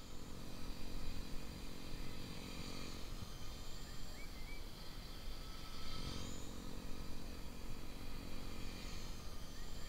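Blade 130X RC helicopter's electric motor and rotor blades buzzing in flight: a steady whine that shifts in pitch a few times, over a low rumble.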